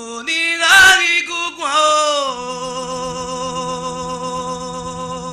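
A singing voice without drums: a short phrase that bends in pitch slides down into one long held note of about four seconds.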